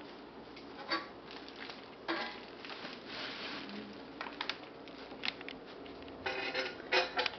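Crinkling of tissue paper and plastic wrap as metal motorcycle exhaust pipes are handled, with scattered clicks and a few clinks of metal pipe, the loudest and most ringing near the end.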